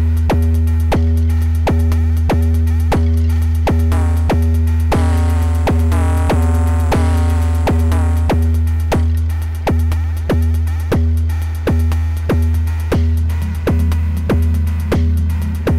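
Eurorack modular synthesizer playing electronic percussion: an evenly spaced pulse of sharp drum hits over a sustained low bass tone. From about five to eight seconds in, a pitched synth voice bends in pitch over the beat.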